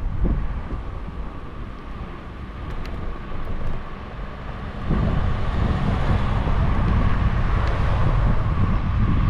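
Low rumble and rushing noise of travel in a moving vehicle, stepping up in loudness about five seconds in, with a steady whine that grows stronger in the second half.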